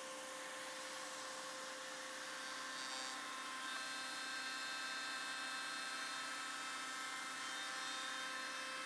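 Woodworking slotting machine running without load, a steady motor hum with several thin whining tones. It gets a little louder about three and a half seconds in.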